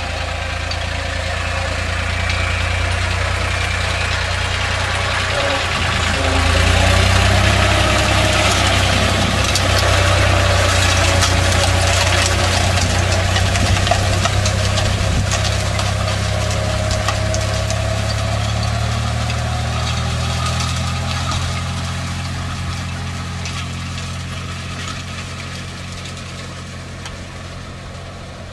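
Tractor engine running steadily while it pulls a rotary hay tedder through cut grass. The engine grows louder about six seconds in as the tractor passes close, then fades in the last part as it works away across the meadow.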